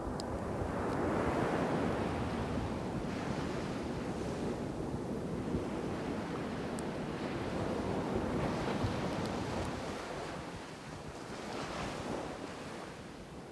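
Ocean shore break: waves crashing and washing up the beach in a continuous roar of surf, swelling with a fresh wave at the start, again about two-thirds through and near the end. Some wind on the microphone.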